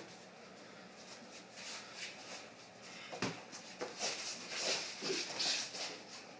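Two boxers sparring lightly. A single sharp knock about three seconds in, then a quick run of short hissing sounds from about four seconds on, as punches are thrown.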